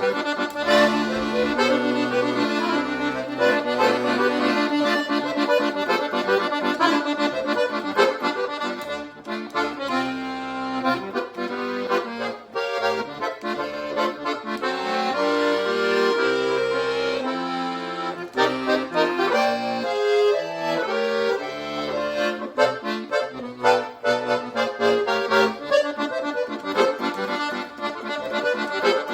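Piano accordion (sanfona) playing the melody of an instrumental forró passage, with a band of drums, zabumba, triangle, pandeiro, electric bass and guitar.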